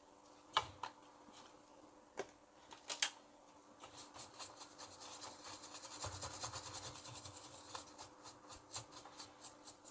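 A few light clicks, then quick, evenly repeated scraping or rubbing strokes by hand, about three a second, over a faint steady hum.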